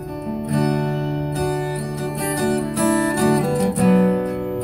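Acoustic guitar strumming ringing chords in a short instrumental break between sung lines.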